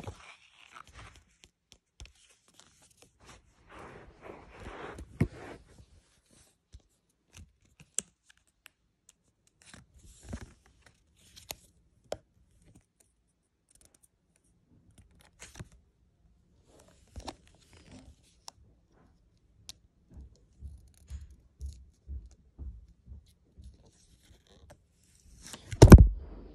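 Football stickers being peeled from their backing paper and pressed into a sticker album: short, scattered bouts of paper peeling, rustling and crinkling with light taps. A loud close bump against the microphone near the end.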